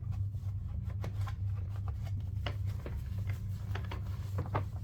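Cloth wiping and rubbing over the plastic body of a Henry vacuum cleaner, with scattered rustles and small knocks, over a steady low hum.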